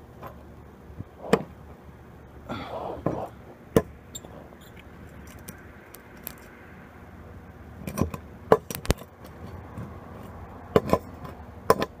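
Scattered sharp metal clicks and knocks as the clamp electrodes and a nail are handled and set down on a wooden board, over a faint low hum. The knocks come singly at first and bunch together about eight seconds in.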